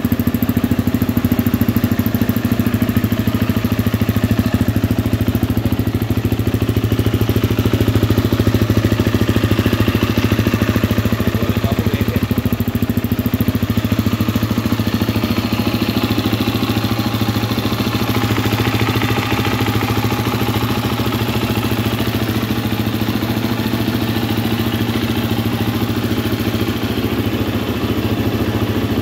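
2020 KTM 250 dirt bike engine idling steadily.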